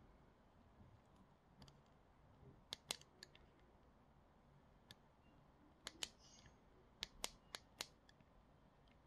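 Sharp little plastic clicks from the fire button and loose display frame of a Geekvape Aegis Legend 2 vape mod being pressed by hand. There are a few scattered clicks, then four in quick succession near the end. The button is catching on the loose top part of the display.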